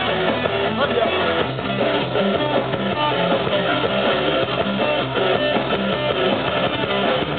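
A live band playing through PA speakers, with electric guitars strummed over a drum kit.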